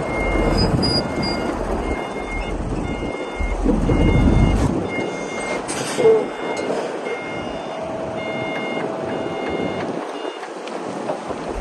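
A heavy machine's reversing alarm beeps over and over above the rumble of a diesel engine at work. There is a sharp clank about six seconds in.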